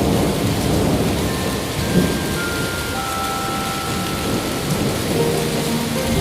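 Storm ambience: dense, steady rain noise with a low rumble of thunder. A few soft sustained musical notes drift over it, higher ones first and lower ones near the end.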